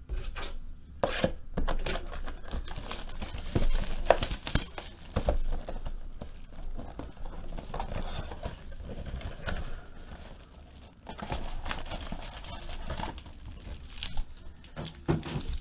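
Plastic wrap crinkling and tearing as a sealed Panini Momentum football card box is unwrapped and opened, then its foil packs are handled, with many small knocks and rustles.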